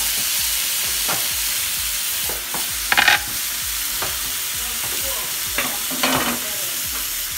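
Canned jackfruit pieces sizzling steadily in a hot frying pan with onion and garlic, just added to the pan. A few brief scraping rattles come as the pan is shaken on the gas burner grate, the loudest about three seconds in and another around six seconds.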